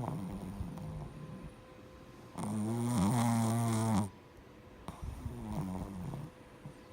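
A sleeping pet snoring in slow breaths: softer snoring breaths, then a loud, low, buzzing snore lasting over a second about two and a half seconds in, then softer breaths again.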